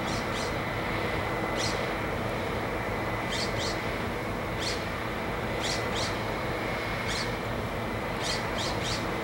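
Excavator diesel engines running steadily in a constant machinery din, with short high chirps that fall in pitch, heard singly and in quick twos and threes about a dozen times.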